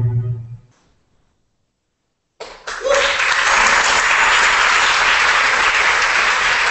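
Music ends on a low held note that fades out within the first second; after about two seconds of silence, an audience applauds steadily.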